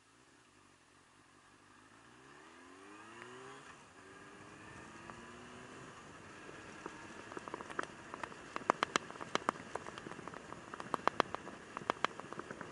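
Yamaha YZF600R Thundercat's inline-four engine accelerating: its pitch rises for about three seconds, drops at a gearshift and climbs again. From about seven seconds in, raindrops tick and crackle sharply and irregularly against the camera, louder than the engine.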